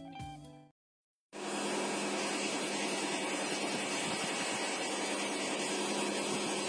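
A music track ends right at the start and is followed by a moment of dead silence. Then a steady, even hiss begins with a faint low hum under it.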